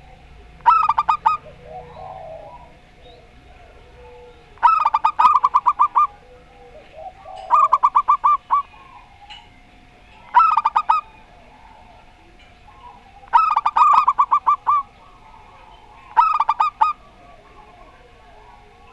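Zebra doves singing their staccato cooing song: six short bouts of rapid, stuttering notes about every three seconds, with softer cooing between them.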